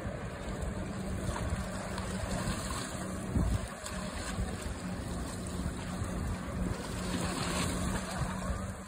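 Steady drone of a passing motorboat's engine, with wind buffeting the microphone.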